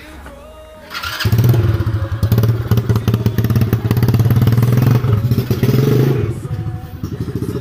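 Small quad-bike (ATV) engine catching about a second in, then running fast and steady with an even pulsing note, dropping in level near the end.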